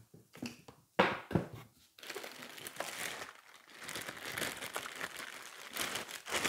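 Plastic packaging crinkling as wrapped parts and bags are handled in a cardboard box, with two sharp knocks about a second in.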